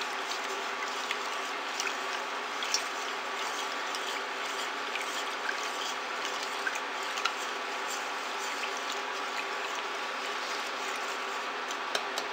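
Plastic spatula stirring undissolved borax powder through water in a stainless steel pot: a steady gritty swishing with occasional light clicks of the spatula against the pot, over the steady hum of the induction cooker.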